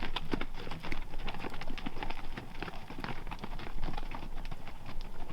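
Hooves clopping irregularly on a rocky trail as several hoofed pack animals walk past.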